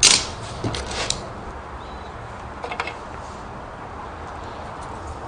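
Small objects handled on a wooden workbench: a sharp clattering knock at the very start with a short run of light clicks, two more light clicks about three seconds in, and a steady low background hum throughout.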